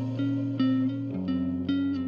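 Background music: plucked string notes repeating over a held bass note that shifts down about a second in.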